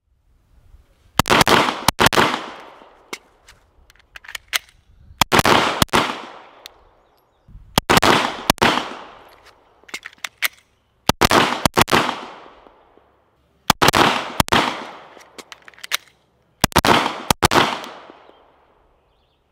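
Glock pistol fired in six short strings of two to four shots, one string about every three seconds, each shot a sharp crack with a ringing tail. Faint clicks between the strings come from the magazine reloads.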